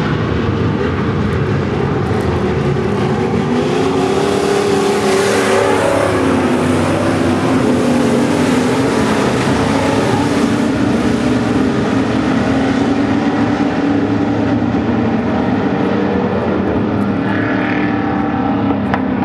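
A pack of V8 dirt-track stock cars racing, several engines running hard at once. Their pitches rise and fall as the cars accelerate and lift through the turns and pass by, with one dropping away near the end.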